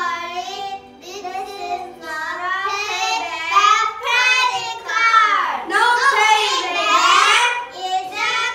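Young children singing a song on stage, with music accompanying them.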